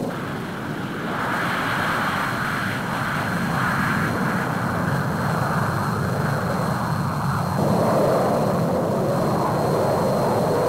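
Jet aircraft flying overhead, a steady engine noise whose character shifts about seven and a half seconds in as the plane passes.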